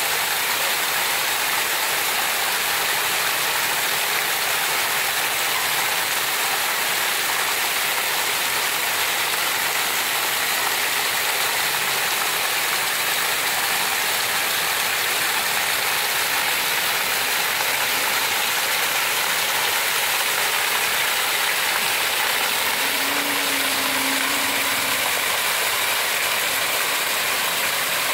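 Heavy rain pouring steadily, a dense, even hiss of rainfall on trees and ground.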